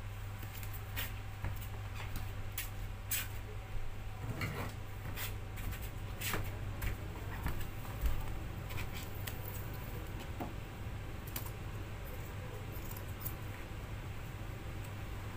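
Scattered light clicks and clinks of small tools and parts being handled, with a soft thump about halfway through, over a steady low hum.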